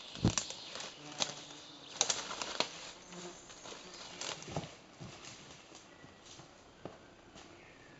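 Leaves rustling and twigs snapping underfoot as a hiker pushes through dense forest undergrowth, in sharp irregular cracks that are loudest in the first three seconds. Fainter scattered footsteps on stones follow.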